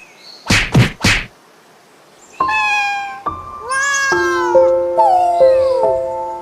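Two sharp claps, then after a short pause two cat meows, with held musical chords coming in about four seconds in.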